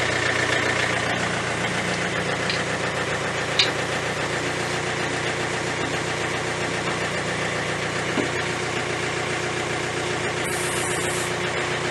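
Tractor engine idling steadily while the backhoe is being unhooked, with a short click about three and a half seconds in.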